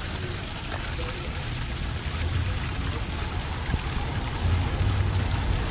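Water from a rock fountain splashing and pouring steadily, with a low rumble underneath.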